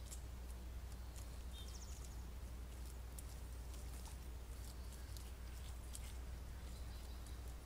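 Black bears moving through dry forest litter: faint, scattered crackles and rustles of their steps over a steady low hum.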